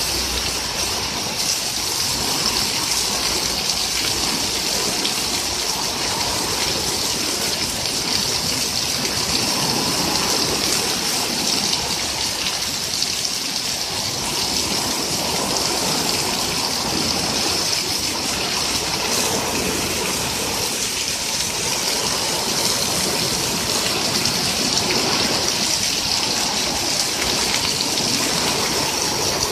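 Heavy, steady downpour of rain on a lawn and concrete patio, with runoff pouring off the edge of the patio roof.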